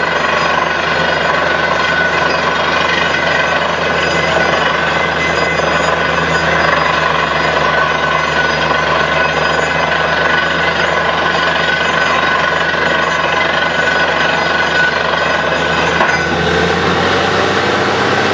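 Truck-mounted borewell drilling rig at work: its engine and air compressor running steadily while compressed air blasts water and rock cuttings up out of the bore around the drill pipe. A loud, unbroken machine din with steady engine tones, which shifts in pitch about two seconds before the end.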